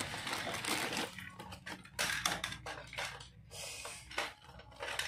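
Clear plastic bag crinkling as a wristwatch is pulled out of it: a dense rustle for about the first second, then separate, irregular crackles.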